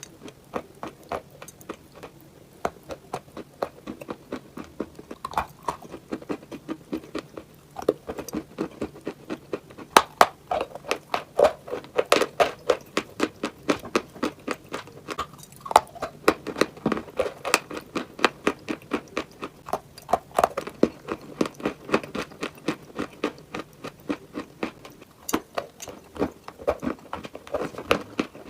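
A person biting into and chewing hard, dry pieces of chalk-like clay, making a run of crisp crunches and crackles, several a second, without pause.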